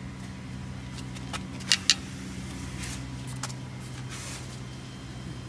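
A steady low hum with a handful of sharp clicks; the two loudest clicks come close together a little under two seconds in.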